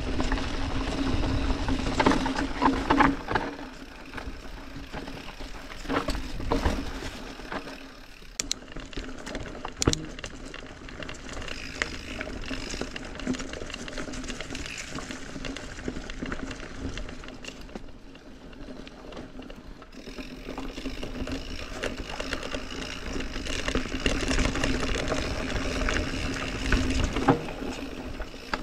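Orbea Occam full-suspension mountain bike riding down a rough dirt forest trail: tyres rolling over dirt and roots and the bike rattling, with sharp knocks over bumps. It goes quieter for a long stretch from about four seconds in as the bike slows, then louder again near the end.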